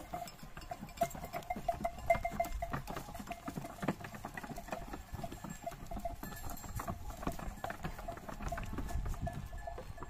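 A flock of sheep walking past on a dirt track, their many hooves making a dense pattering and clicking, with a faint steady tone behind.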